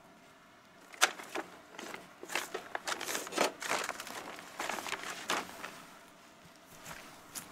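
A small hand weeding tool scratching and raking through dry grass and soil in a run of quick, irregular scrapes lasting about four seconds, with one more scrape near the end.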